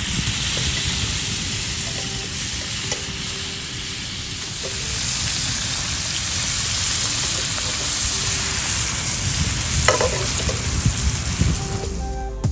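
Surfperch frying in a hot cast-iron skillet: a steady sizzle with crackling, and a few louder spits about ten seconds in. The sizzle stops near the end.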